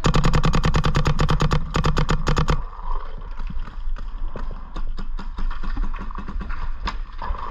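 Planet Eclipse Geo 4 electronic paintball marker firing a rapid string of shots, about ten a second, for about two and a half seconds. Scattered quieter shots and pops follow.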